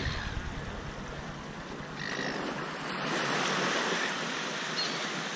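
Small waves washing up on a sandy shore, a steady wash that swells louder about two seconds in.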